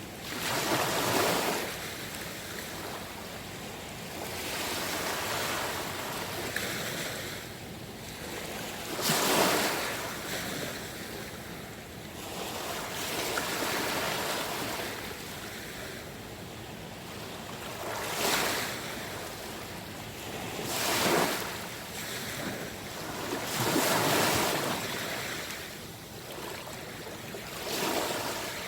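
Small sea waves washing in on the shore, a swell of rushing water every few seconds over a steady wash, the loudest about nine seconds in.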